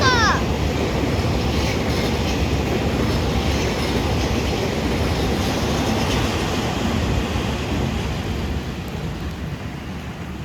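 TRA EMU3000 electric multiple-unit train running past on the track, a steady rumble of wheels on rails that fades away over the last couple of seconds. A brief high falling squeal right at the start.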